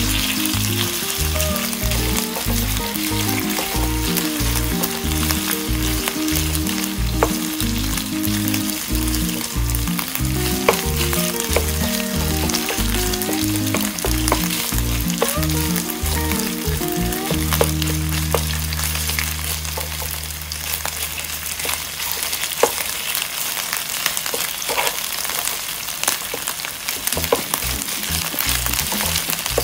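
Thin strips of beef sizzling in oil in a nonstick frying pan, turned with a wooden spatula that clicks against the pan now and then. Background music with a rhythmic bass line plays under it, ending on a held low chord about two-thirds of the way through.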